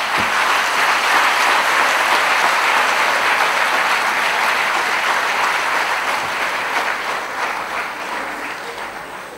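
Audience applauding, strong and steady, then fading away over the last couple of seconds.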